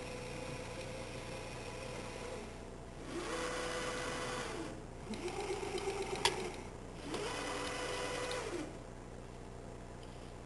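CNC router's servo-driven axes making three separate rapid moves, each a whine that rises in pitch, holds, and falls away, with a sharp click during the middle move. A steady tone before the moves fades out about two and a half seconds in.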